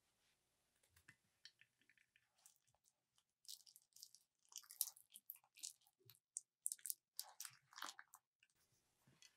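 Plastic piping bag crinkling and crackling as it is squeezed and wrung by hand, its glittery filling squishing out. A few faint clicks come first, then a quick run of crinkles from a few seconds in until near the end.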